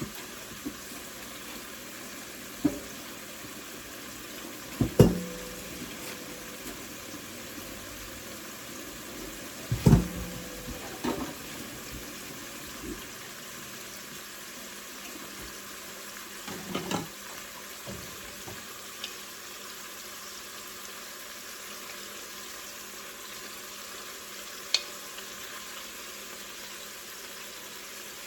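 Meatballs frying in a pan with a steady sizzle, broken by occasional clanks of cookware. The two loudest clanks come about 5 and 10 seconds in, each with a short ring.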